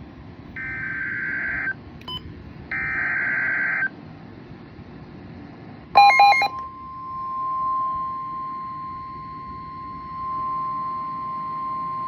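Emergency Alert System SAME header: two bursts of shrill digital data tones, each about a second long, with a short gap between them. About six seconds in comes a brief loud cluster of beeps, then the steady single-pitched warning alert tone starts and holds, announcing the severe thunderstorm warning that follows.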